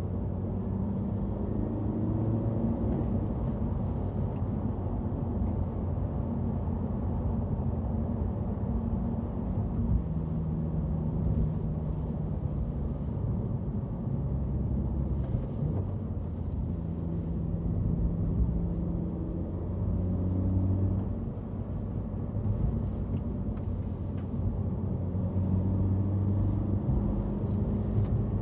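Honda Civic hatchback FK7's 1.5-litre L15C turbocharged four-cylinder, ECU-tuned to about 1.2 boost, running under load while driving. Its pitch rises and falls in steps as it goes through the gears of the six-speed manual.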